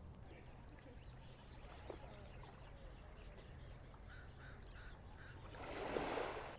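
Quiet shoreline ambience: faint bird calls, with a quick run of short, evenly spaced calls about four seconds in. Near the end, a soft rushing swell, a small wave washing in, is the loudest sound.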